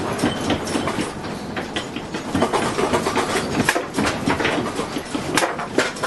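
A house shaking in an earthquake: walls, shelves and household objects rattling and clattering in a dense run of irregular knocks and clicks.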